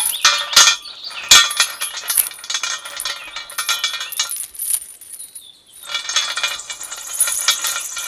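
Small metal chain clinking and rattling in a run of light, irregular clicks as it is unhooked from a model tractor's hitch and dangled by hand.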